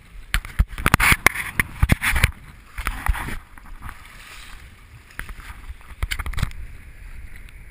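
Shallow seawater surging and splashing over shoreline rocks, with a run of loud, sharp splashes through the first two seconds and more around three and six seconds in.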